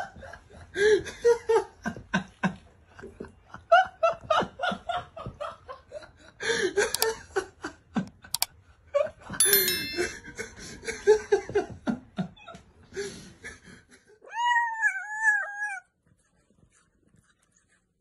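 A person laughing in repeated choppy bursts, then one long wavering cat meow near the end.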